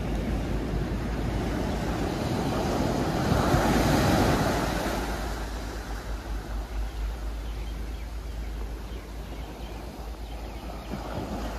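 Ocean surf: a wave breaks and washes in, loudest about four seconds in, then eases off. Wind rumbles steadily on the microphone throughout.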